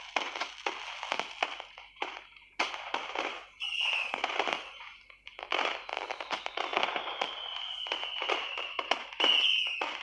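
Fireworks sound effect: groups of rapid crackling pops and bangs with brief gaps between them, with a few short whistles and a long, slowly falling whistle in the second half.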